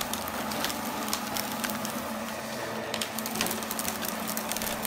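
Twin-shaft shredder cutting cardboard: a steady motor hum under irregular sharp cracks and snaps as the cutter discs tear the boxes apart.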